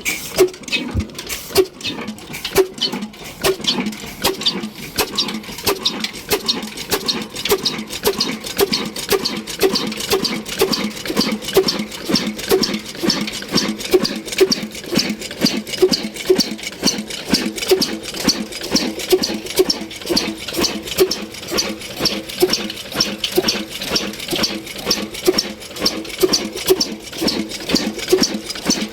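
Ruston Hornsby heavy-oil diesel engine running after being started, beating out a steady, even rhythm of knocks and clatter.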